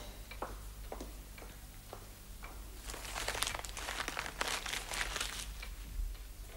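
Faint rustling and scattered light clicks, as of hands handling something in a quiet room. The rustling is strongest in the second half.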